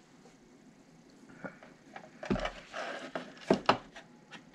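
Handling noise on a workbench: after a quiet start, a knock a bit over two seconds in, some rustling, then two sharp knocks close together near the end as parts are moved and set down.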